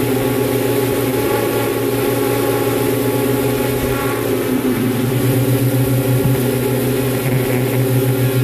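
Multirotor drone's motors and propellers humming steadily, the pitch dipping slightly about four seconds in and the hum growing a little louder after.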